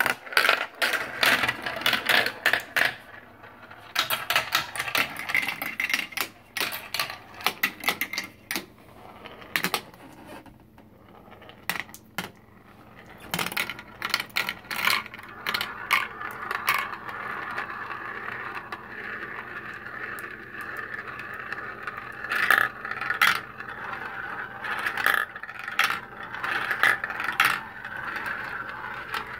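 Glass marbles rolling and clattering through a plastic marble run: sharp clicks and rattles as they drop through tubes and hit track pieces. From a little past halfway, a steady rolling whir as they circle round the plastic funnels, with clicks still on top.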